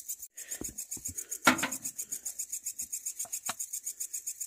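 A night insect chirping in an even rasping pulse, about seven times a second, the steady background of the forest at night. Over it come a few knocks and sloshes as a plastic bottle is dipped and filled in a small spring; the loudest knock is about a second and a half in.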